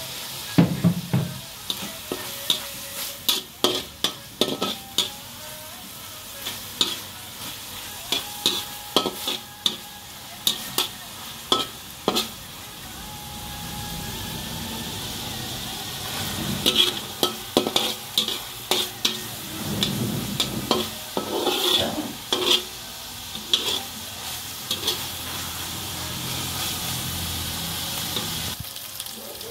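Food frying and sizzling in a wok while a spatula stirs it, scraping and clacking against the pan in irregular runs; the clacks thin out for a few seconds around the middle.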